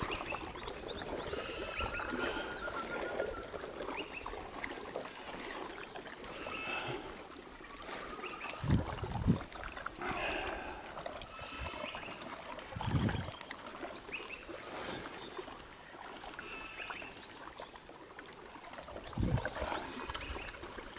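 Water lapping against a small boat's hull, with birds calling now and then. A few dull thumps stand out: two close together about nine seconds in, another about four seconds later, and one near the end.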